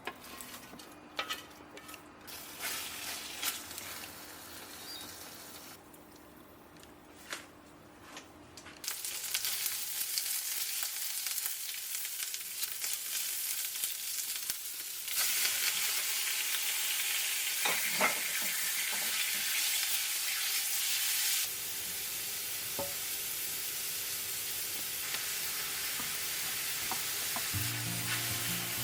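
Food frying in a pan with a steady sizzle that starts about a third of the way in, after a few kitchen clicks and knocks, and grows louder partway through.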